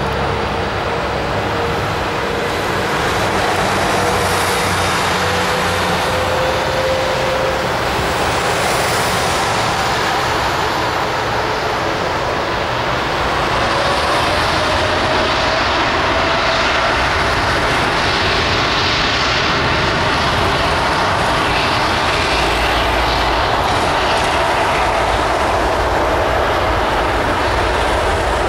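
Boeing 787-9 Dreamliner's jet engines running at high power as it rolls for takeoff: a steady, loud roar with a faint whine that slowly rises in pitch, swelling a little about halfway through.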